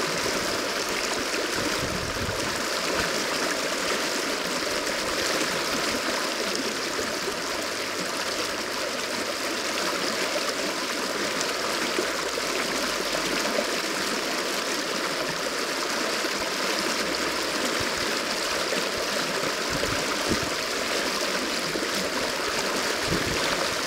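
Fast-flowing river water rushing steadily over a broken, rippled surface, an even, unbroken wash of water noise.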